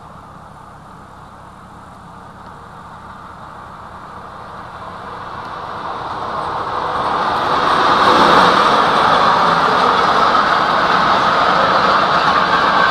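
A freight train of covered goods wagons hauled by a Deutsche Reichsbahn electric locomotive passes, with the steady rolling noise of wheels on rails. It grows louder from about four seconds in and is loud and even from about eight seconds on.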